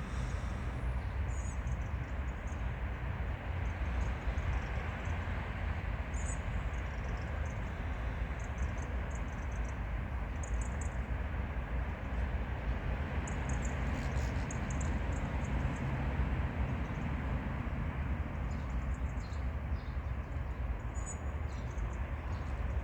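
HŽ Cargo series 2041 diesel shunting locomotive running steadily with a deep low rumble, with faint high ticks now and then.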